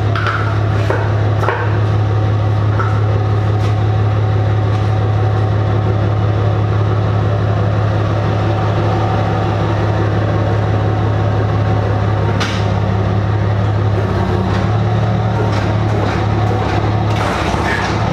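A vehicle engine idling: a steady low drone, with a few light clicks and knocks over it.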